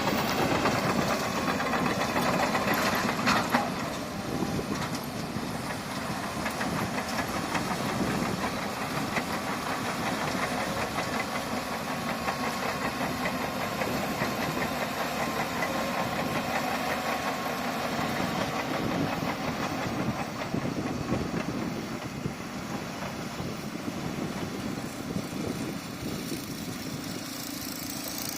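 Bulldozer's diesel engine running steadily, a little louder in the first few seconds.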